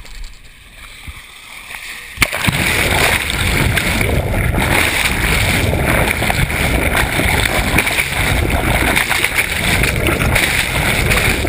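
A splash as a camera is dunked into the sea about two seconds in, then a loud, steady rush of water streaming over the submerged camera housing.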